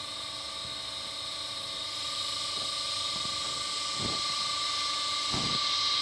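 Two small electric pump motors on ABB ACH580 variable-speed drive demonstration units running together: a steady whir with a high hiss and a thin steady whine, slowly growing a little louder. A few soft knocks come from about four seconds in, as hands move on the units.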